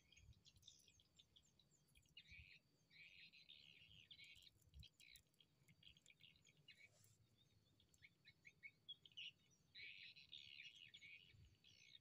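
Faint chirping of small birds, in quick runs of high chirps, loudest around three seconds in and again near ten seconds.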